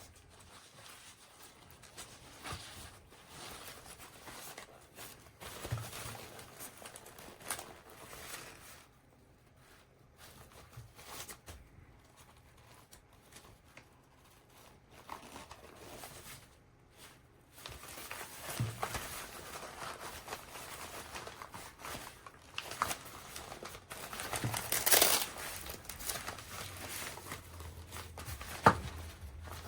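Packaging and gear being handled: crinkling and rustling with scattered light knocks and clicks, quieter for a stretch in the middle, then busier and louder in the second half, with a sharp knock near the end.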